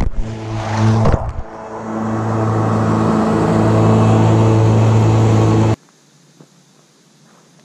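John Deere 1023E sub-compact tractor's three-cylinder diesel engine running close by with the mower deck engaged, with a loud clatter about a second in. The engine grows louder over the next few seconds, then the sound cuts off abruptly about six seconds in, leaving only a faint background.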